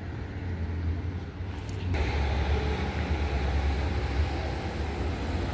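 Outdoor town-street ambience with traffic: a steady low rumble, joined about two seconds in by a wider, louder hiss that holds to the end.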